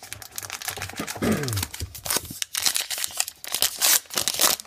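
Crinkly foil wrapper of a baseball card pack being torn open and crumpled in the hands, a dense run of rapid crackles.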